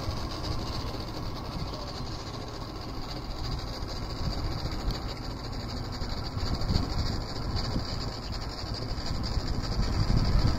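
Steady low rumbling noise with a hiss over it, growing a little louder near the end.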